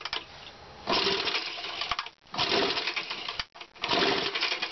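Recoil pull-starter cranking a home-built Simplic-type hyper-expansion two-stroke engine made from a Briggs & Stratton lawn mower engine: three quick pulls about a second each, the engine turning over against heavy compression without catching.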